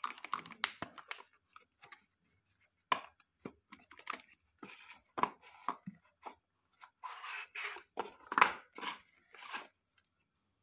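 Cardboard packaging of a wireless lavalier microphone being handled: the inner box slid out of its sleeve and its lid opened, giving irregular scrapes, rustles and taps against a concrete floor, the loudest a little past eight seconds in.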